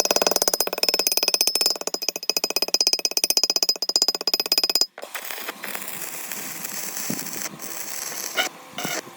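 A power tool running with a rapid, even pulsing rattle for about five seconds, then cutting off abruptly; after that, quieter workshop handling noise with a few sharp clicks.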